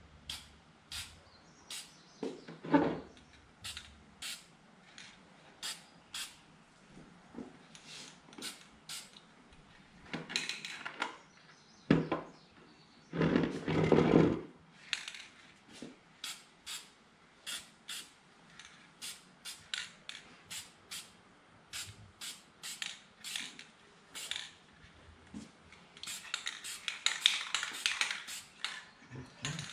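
Aerosol spray-paint can giving many short, quick bursts of black paint, dabbing spots onto a welding helmet. There is a louder handling noise near the middle as the helmet is turned on the bench, and a quicker run of bursts near the end.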